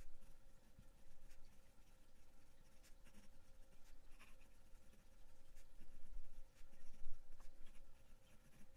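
Faint scratching of a Gravitas fountain pen's fine steel nib on paper as letters are written out. The nib is smooth and wet. The short, quiet strokes come sparsely at first and a little more often after about five seconds.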